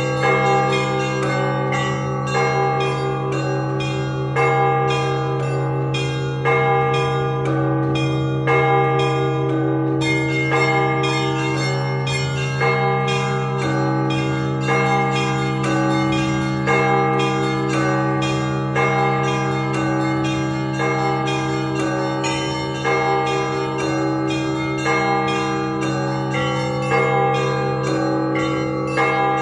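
Russian Orthodox church bells, a set of 32, rung together in the ringing that calls to a service. Many bells are struck in quick succession, one small bell repeating several times a second, over the deep, lingering hum of a large bell.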